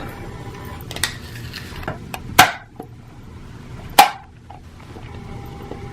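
Hard plastic clacking and knocking as a clear plastic exercise ball is handled and its halves shut: a few sharp clicks, the two loudest about two and a half and four seconds in.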